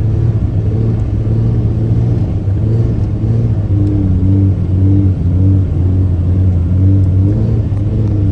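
Cummins diesel engine of a third-generation pickup running under load while driving, a steady low drone with short rises and falls in revs about once a second.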